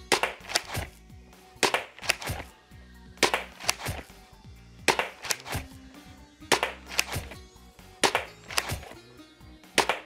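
WORKER Seagull spring-powered foam dart blaster being fired repeatedly, about one shot every second and a half: each shot a sharp snap followed by one or two smaller clacks. Background music plays underneath.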